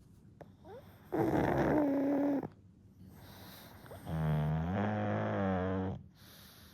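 A one-year-old pug snoring in his sleep: two long snores, each one and a half to two seconds long, about three seconds apart.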